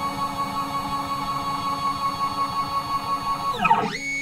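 Stepper motors of a GRBL-driven CNC profiler whining at a steady pitch during a rapid return-to-zero move. Near the end the whine drops steeply in pitch and then climbs back to a new steady note.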